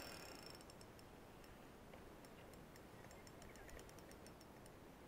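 Faint, irregular ticking from a spinning reel while a hooked fish is being played, the clicks coming thicker through the middle, over otherwise near silence.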